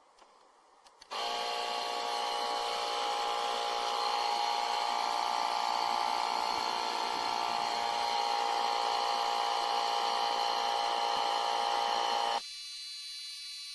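KeenPower 21 V cordless tire inflator's compressor motor switching on about a second in and running steadily for about eleven seconds, then cutting off sharply near the end, leaving a fainter high-pitched hum.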